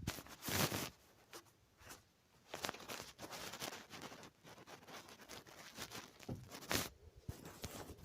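Irregular rustling and crackling noises, loudest about half a second in and again near seven seconds.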